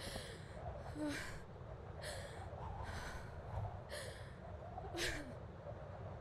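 A young woman gasping for breath, worn out, about once a second, the loudest gasp about five seconds in, over a low steady rumble.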